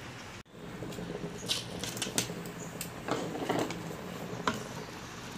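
Light clicks and taps with a short rustle as shredded cabbage is tipped from a plastic colander into a pressure cooker's inner pot.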